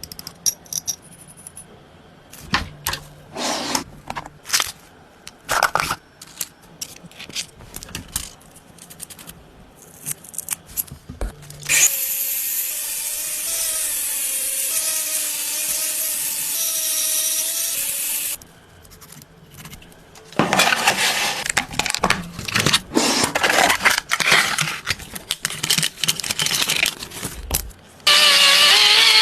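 Restoration work on a truck: repeated knocks and scrapes of hand tools on metal, with a power tool running steadily for about six seconds in the middle and starting up again near the end.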